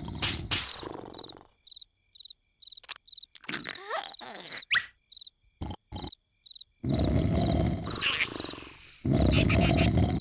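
Exaggerated cartoon snoring from a caterpillar character, loud and drawn out, at the start and in two long snores in the second half. In the quiet stretch between them, crickets chirp at an even pace and a few short squeaky cartoon effects slide in pitch.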